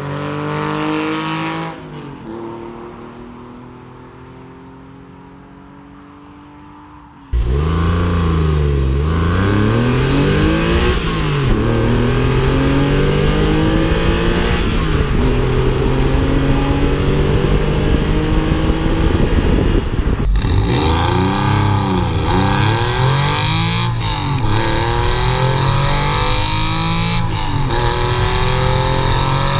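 Porsche 911 996's 3.4-litre naturally aspirated flat-six accelerating hard from a launch past the listener and fading away. After a sudden cut it is heard close at the tailpipe, revving up and down through the gears. First it runs through the standard muffler, then about two-thirds of the way in through the Gundo-hacked muffler, whose welded bypass pipe lets exhaust skip the silencer, and a steady high hiss joins the note.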